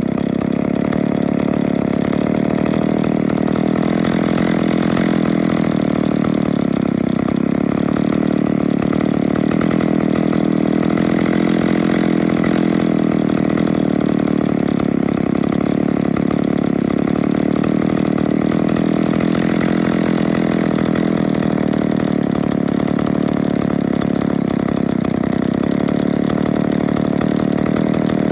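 McCulloch Pro Mac 650 two-stroke chainsaw idling steadily, its engine speed drifting slowly up and down.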